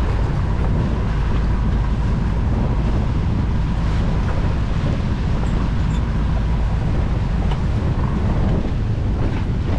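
Steady wind buffeting the microphone on an open boat, a dense low rumble with water noise underneath.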